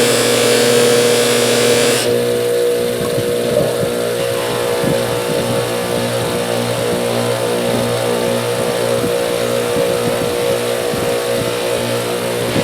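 Electric bench polisher running with a steady hum, a metal part pressed against its abrasive wheel with a loud grinding hiss that stops abruptly about two seconds in; the motor keeps running after that with light, intermittent scraping.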